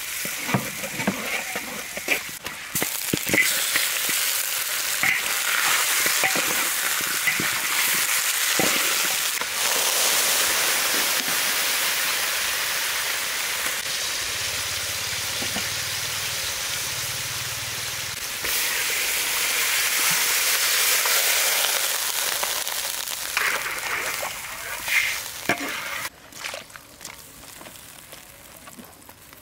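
Food sizzling as it fries in a hot pan, with clicks and scrapes of a utensil stirring in the first few seconds and again near the end. The sizzle dies down about four seconds before the end.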